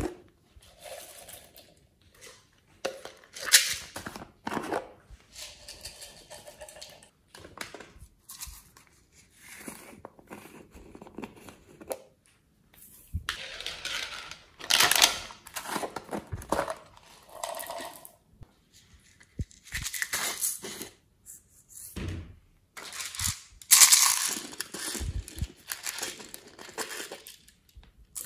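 Hard plastic toy-shaped containers being handled, opened and set down, with scraping and clicks, and sprinkles and small beads tipped out of them onto slime. The sounds come in irregular scratchy bursts with short pauses between.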